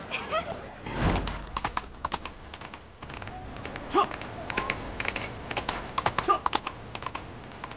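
A horse's hooves galloping on stone paving: a long run of sharp, irregular clattering beats. There is a low thump about a second in.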